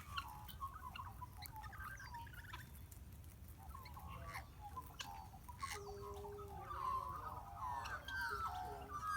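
Parrots chattering: many short squeaky chirps and warbling calls that grow busier in the second half, with a few sharp clicks among them.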